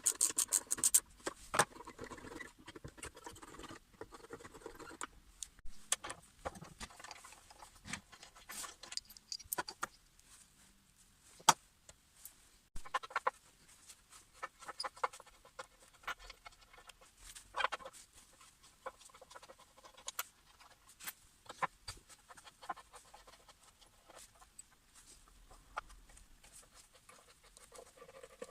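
Irregular small clicks, taps and scrapes of parts and hand tools being handled at a workbench, with no engine running.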